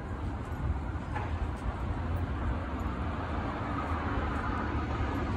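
Hand scrubbing compound across a car's side-window glass with a cloth pad, a steady rubbing swish, to grind off old hard-water scale, over a low outdoor rumble.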